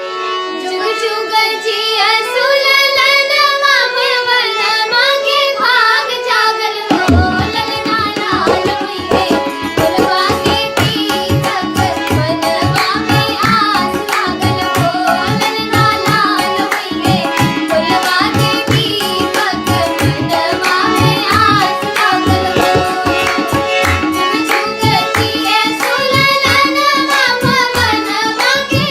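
Children singing a devotional Shiva song over a steady held accompaniment; tabla drumming enters about seven seconds in and keeps a quick beat under the singing.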